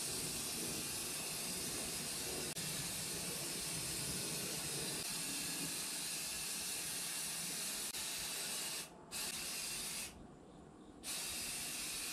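Aerosol spray can hissing steadily as high-temperature paint is sprayed onto a motorcycle muffler, with a brief stop about nine seconds in and another, about a second long, just after.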